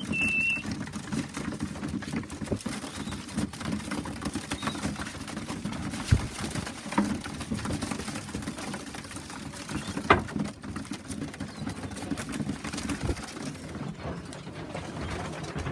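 Young pigeons in a loft cooing, with many small taps and clicks of birds moving about and pecking, a few louder taps among them. A brief high whistle sounds right at the start.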